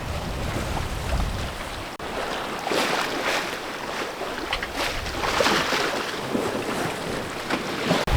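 Sea water washing along a sailboat's hull in surges, with wind buffeting the microphone for the first two seconds.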